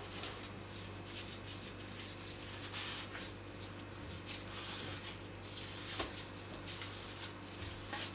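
Bore snake being pulled through an SVDS/Tigr rifle barrel: a series of soft, uneven rubbing and scraping sounds of the cord and brush dragging along the bore.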